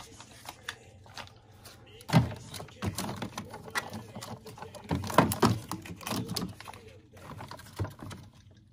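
A hand rummaging through plastic pouches on a shelf, making crinkling and short knocks of packets and containers, louder about two seconds in and again around five seconds in.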